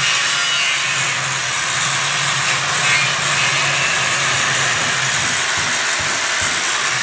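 A power tool cutting steel oil-drum metal: a steady harsh cutting noise with a low hum under it.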